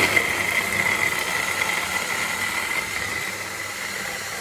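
Electric blender grinder motor running at speed with a steady high whine, grinding green chilies, garlic, onion and coriander into chutney.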